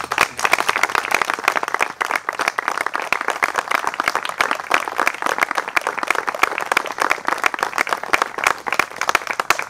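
A gathered crowd applauding, many hands clapping steadily and densely.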